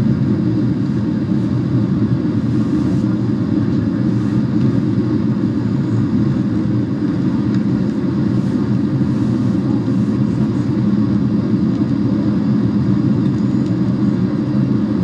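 Steady low rumble of a jet airliner's engines and rushing air, heard inside the cabin during the descent.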